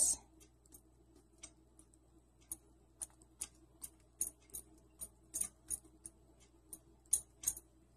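Knife point repeatedly stabbing holes into a raw turkey breast in a roasting pan: irregular short sharp clicks, about two or three a second.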